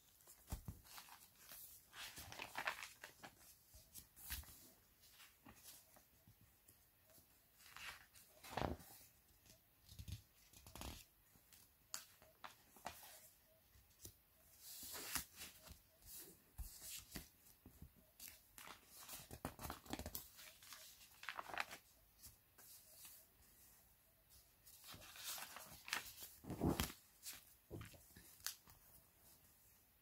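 Stiff, glued pages of a thick handmade collage art journal being turned and handled, giving quiet, irregular paper rustles and flaps.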